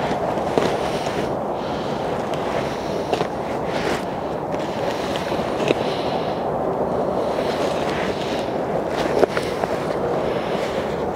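Steady wind rushing over the microphone, with crinkling and crackling of the stiff white sheet layers of a flexible rifle-armor panel as they are peeled apart by hand. A few sharp crackles stand out, the loudest about nine seconds in.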